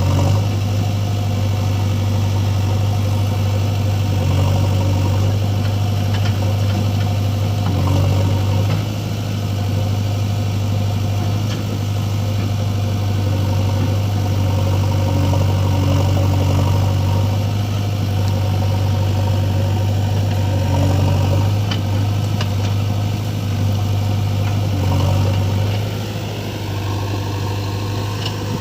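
Diesel engine of heavy loading machinery running steadily near idle, a constant low hum. It dips slightly twice, about a third of the way in and near the end.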